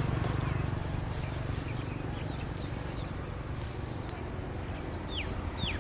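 Steady outdoor background noise with faint scattered ticks, and two short falling chirps near the end.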